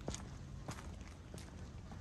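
Footsteps at an even walking pace, a sharp step about every two-thirds of a second, over a low steady rumble of street background.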